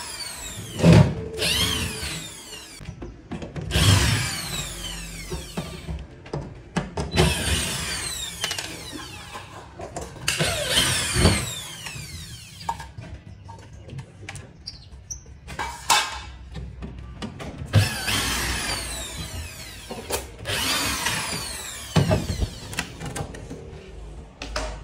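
Cordless drill running in short bursts on screws in plywood floor panels, its motor pitch rising and falling with each burst, about a dozen times.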